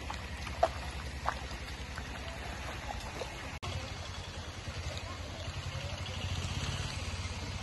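Feet wading and splashing through floodwater on a road, with a couple of sharper splashes about half a second and just over a second in. A steady low rumble runs underneath.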